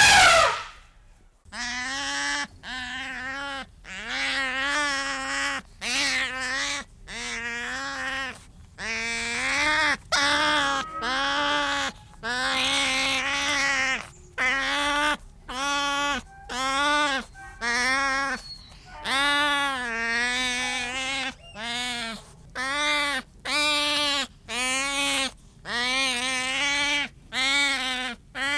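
Goat bleating over and over, about one short pitched call a second. A brief, louder burst comes at the very start.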